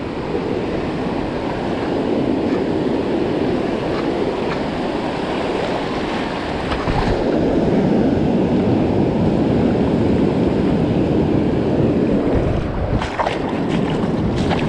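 Surf breaking on the beach with wind buffeting the microphone: a steady rushing noise.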